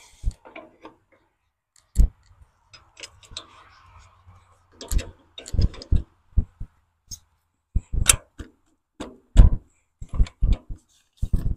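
Irregular metal clanks and knocks from a Ford 8N tractor's three-point hitch lower lift arm being handled and jiggled against an implement's hitch pin and frame. The loudest knocks come about two seconds in and near the end.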